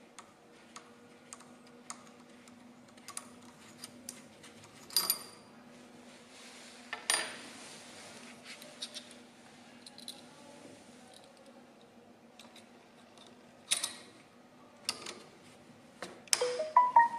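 Metal clicks and clinks of steel riveter tooling being handled: punch and die inserts taken out of and fitted into the nose of an XPress 800 push-pull riveter's C-frame head. There are scattered light ticks, a few sharper knocks, and a burst of ringing metallic clinks near the end, over a faint steady hum.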